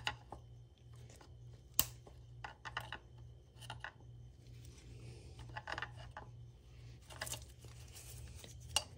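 A flat-head screwdriver prying and shimmying a plastic coil-pack wiring connector off its clip: a scattered series of small clicks and scrapes, the sharpest about two seconds in.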